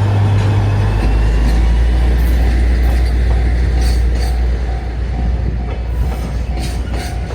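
Freight train passing slowly over a level crossing: the locomotive's deep diesel rumble drops in pitch about a second in, and the wheels clack in pairs over rail joints. The crossing's warning bell dings steadily, about twice a second.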